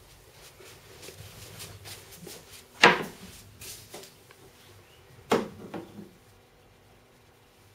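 Sharp knocks of household doors and drawers being shut: one loud knock about three seconds in, then another about two and a half seconds later followed by two smaller ones, with faint clicks and rattles between.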